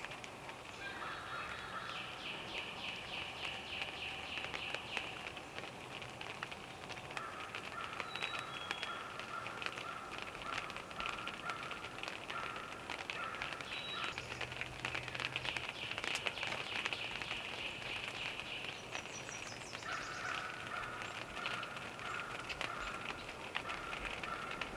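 Birds calling outdoors: two long runs of a repeated call, the first a little over a third of the way in and the second near the end, with a few short high whistles, over a steady outdoor background with many small ticks.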